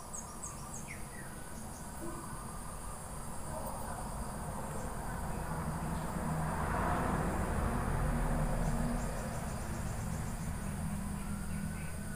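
Steady, high-pitched chirring of insects, with a low rumble underneath that grows louder in the middle.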